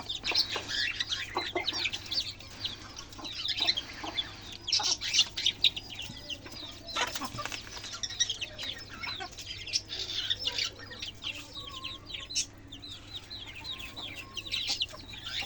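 Backyard chickens: hens clucking and chicks peeping, a dense, continual run of short high chirps, many falling in pitch.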